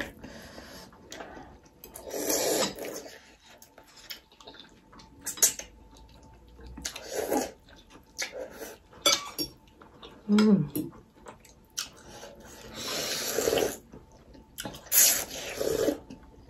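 Noodles of chicken thukpa being slurped from the bowl: a string of separate wet, hissing slurps every second or two, with a longer slurp about thirteen seconds in.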